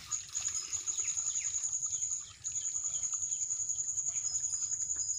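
A steady, high-pitched pulsing insect trill that breaks off briefly about two seconds in, with faint bird chirps beneath it.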